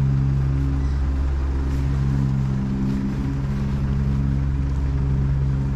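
An engine running steadily at a constant idle: a low, even hum that holds one pitch.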